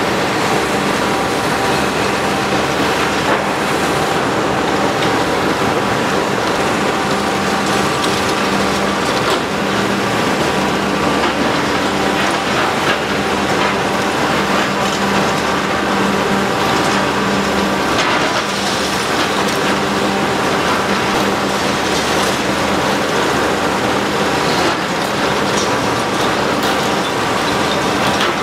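High-reach demolition excavator running steadily as it breaks up a concrete building, its engine hum under a continuous crackle and clatter of broken concrete and falling rubble.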